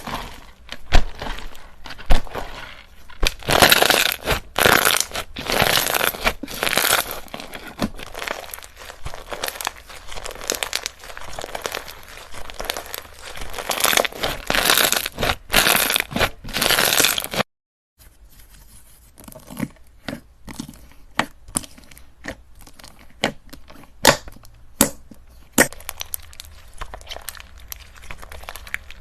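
Slime being squished, stretched and pressed by hand: a dense run of wet crackles, pops and tearing sounds. About halfway through it cuts off for a moment and resumes quieter, with sparser sharp clicks.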